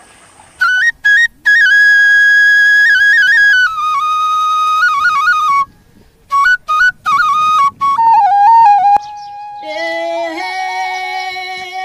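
Background music: a solo flute plays an ornamented melody in phrases broken by short pauses. About ten seconds in, a fuller texture of several held notes takes over, with a steady lower note underneath.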